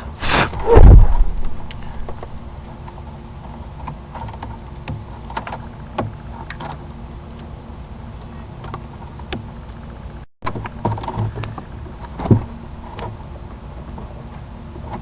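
Hands working on a burned tail-light bulb socket and wiring: scattered small clicks, ticks and light knocks of plastic and metal being handled while the ash is cleaned out. A single loud bump about half a second in.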